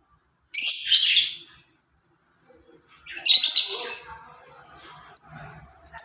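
A caged songbird the uploader calls a labet bird (burung labet) singing in loud bursts: one about half a second in, another about three seconds in, and a short note near the end. A thin, steady high whistle holds underneath from about two seconds on.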